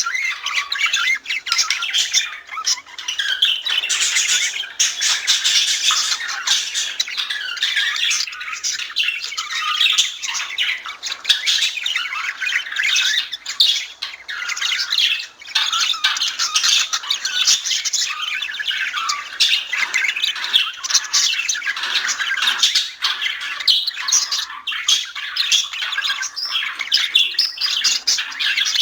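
Budgerigars (budgies) singing and chattering: a dense, steady stream of warbles, chirps and squawks from several birds, without a break.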